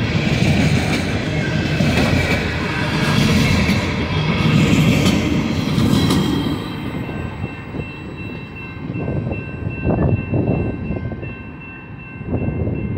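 Freight train of coke hopper cars rolling past close by: steel wheels clattering and rumbling over the rails. About seven seconds in the sound drops as the end of the train passes and moves away, leaving a few separate knocks from the receding cars.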